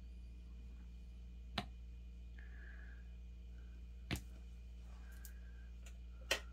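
Three sharp light clicks of a gel polish bottle, its plastic brush cap and nail swatch sticks being handled, one as the cap is screwed back onto the bottle, over a steady low hum.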